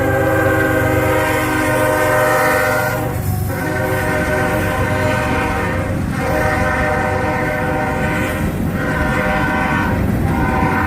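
Locomotive air horn sounding a chord in a series of long blasts, each broken off by a short gap, over the low rumble of a passing train.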